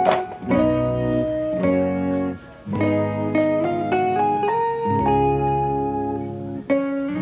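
Instrumental background music: a stepping melody over held chords, with a sharp click at the very start and a brief drop-out about two and a half seconds in.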